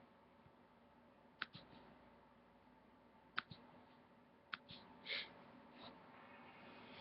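Near silence, with a few faint sharp clicks spread over several seconds and a brief soft hiss about five seconds in.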